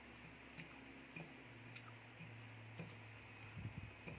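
Faint, scattered clicks of forks against plates as people eat, about half a dozen over a few seconds, over a low steady hum.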